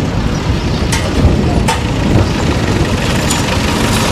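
A loud, steady low rumble, like traffic or machinery noise, with a few sharp clicks, two of them about a second apart near the start.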